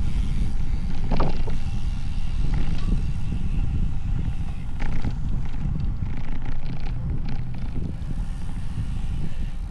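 Wind buffeting the microphone of a camera on a moving road bike: a steady low rumble, with a few short knocks from the road, about a second in and again around five seconds in.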